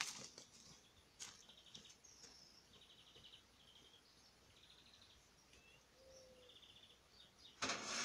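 Faint songbirds singing outdoors: short, rapid trilled phrases repeated every second or so, with a few sharp clicks. A brief loud rush of noise comes near the end.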